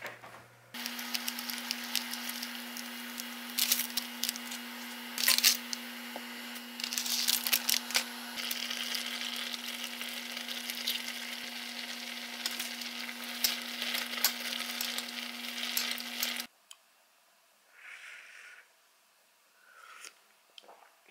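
A pot of ramyeon boiling hard on an electric cooktop: loud bubbling and crackling over a steady hum. Both cut off suddenly about 16 seconds in, leaving a few faint spoon-and-eating sounds.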